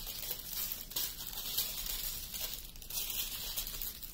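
Small plastic bags of diamond painting drills crinkling as they are handled, a light rustle with a few soft ticks.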